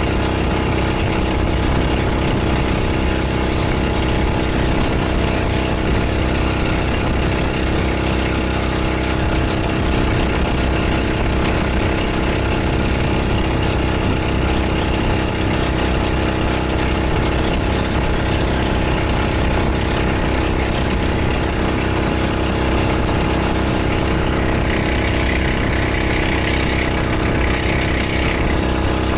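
Motor bangka (outrigger motorboat) engine running at a steady, unchanging pitch, heard from on board.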